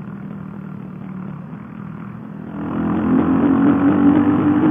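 CCM Spitfire's single-cylinder engine running at road speed, with wind and road noise. About two and a half seconds in it gets clearly louder and a little higher in pitch as the bike rides into a road tunnel.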